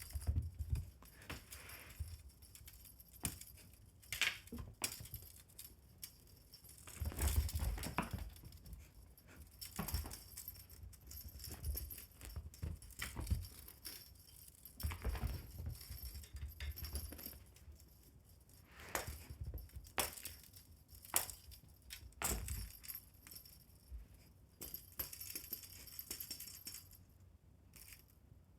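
Irregular jingling and rattling of a fishing-rod (wand) pet toy being batted and tugged at, with soft thumps and rustles in bursts several times.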